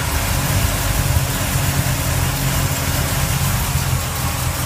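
Truck engine fed by a Holley 650 double-pumper carburetor idling steadily, running smoothly without a lean stumble.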